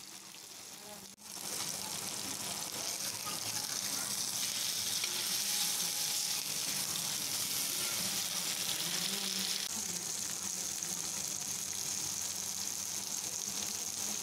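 Marinated Indian mackerel shallow-frying in oil on a cast-iron dosa griddle: a steady sizzle, quieter for about the first second, then louder.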